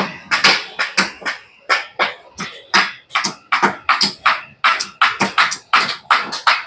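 Rapid, irregular sharp knocks from several workers striking bamboo poles with hand tools on a bamboo-frame building site, about three strikes a second, with a short lull near the start.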